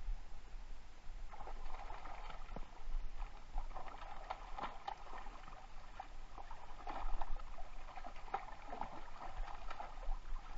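Hooked bass thrashing at the surface of shallow water, in repeated bouts of splashing with sharp slaps.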